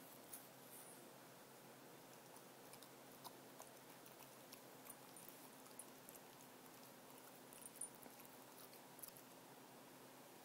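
Cocker spaniel grooming herself: faint, irregular wet licking and nibbling clicks at her coat, over a low steady hum.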